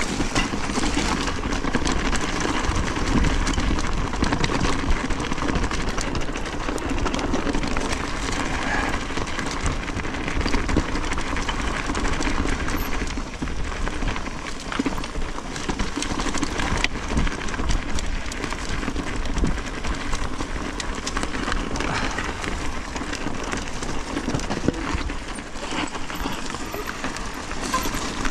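A Specialized Turbo Levo e-mountain bike being ridden over a dirt trail: tyres rolling and the bike rattling steadily over the bumps, with a constant low rumble.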